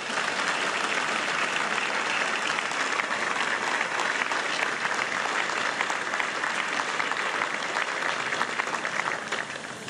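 Crowd applauding: many people clapping together steadily, fading near the end.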